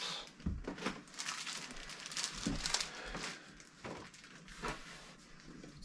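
Plastic packaging crinkling and items being shifted about inside a large cardboard box, in irregular rustles and light knocks.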